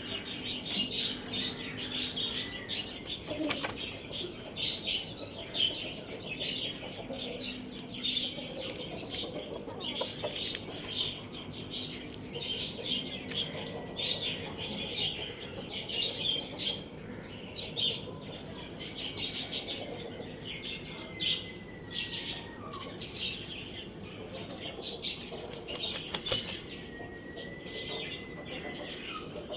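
Many small birds chirping and fluttering, a constant scatter of short sharp chirps and wing flaps, with a few thin drawn-out whistles in the second half.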